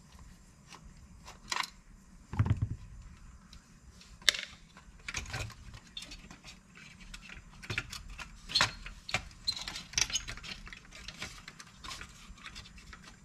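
Small metal parts of a Lionel Standard Gauge 318 locomotive clicking and clattering as it is taken apart by hand, with a dull knock about two and a half seconds in.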